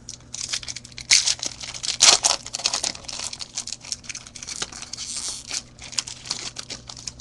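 A silver foil trading-card pack from a 2010 Topps Platinum Football box being torn open and crinkled by hand, with the sharpest crackles about a second and two seconds in.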